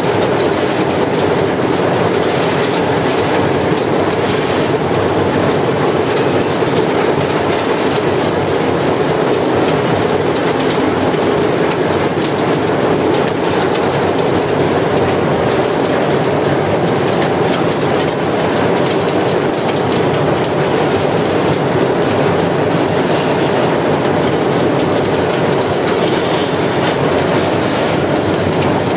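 Industrial vacuum cleaner running steadily, a loud continuous motor and airflow noise with no pauses.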